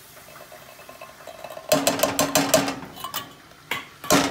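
Canned peas being tipped out of a tin can into a metal saucepan: the can knocks and scrapes against the pot in a quick run of clinks and clatters starting a little under two seconds in.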